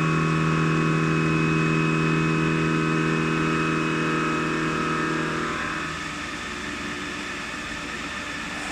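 HAAS VF-8/40 vertical machining center running, a steady hum and whine made of several held tones. About five and a half seconds in the tones stop and the sound drops to a quieter steady hiss.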